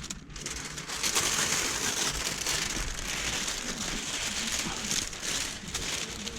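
Window tint film rustling and crinkling steadily as it is handled and slid into position on the wet windshield.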